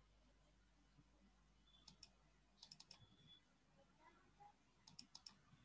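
Faint computer mouse clicks in quick clusters: a pair about two seconds in, then four rapid clicks, and four more near the end.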